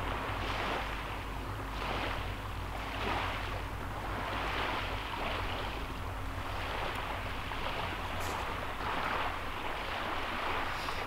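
Small waves washing onto the beach, a steady surf hiss that swells and eases every second or two, with a faint low steady hum underneath.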